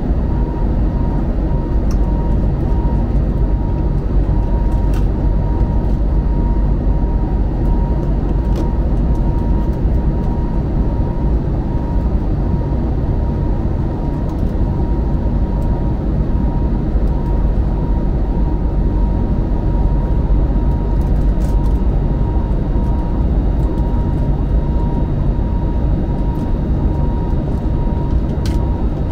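Steady in-flight cabin noise of an Airbus A321neo airliner: a deep, even rumble of engines and airflow with a thin steady whine above it.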